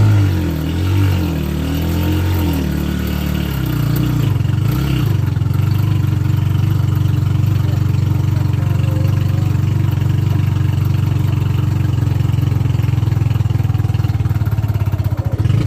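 Vehicle engine running: its pitch rises and falls over the first few seconds, then holds steady with an even pulsing, and climbs again at the very end.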